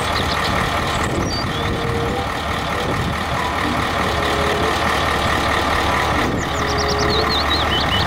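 Diesel dump truck running steadily, a low, even engine noise, with birds chirping about a second in and again near the end.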